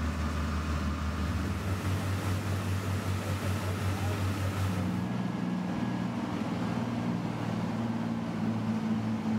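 Mark III bridge erection boat's diesel engine running under power, with water churning in its wash; the engine note changes to a higher pitch about halfway through.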